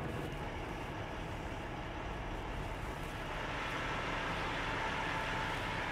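Semi truck's diesel engine running at low speed as the rig creeps forward, heard from inside the cab: a steady low rumble with a hiss that grows a little louder about halfway through.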